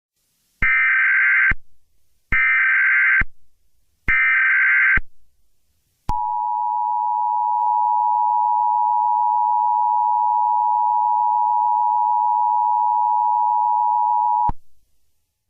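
Emergency Alert System tones: three short buzzing bursts of the SAME digital data header, each just under a second long, then the steady two-tone EAS attention signal held for about eight seconds and cut off sharply.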